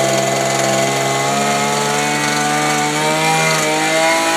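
A small engine or motor running at a steady speed, holding one even pitch.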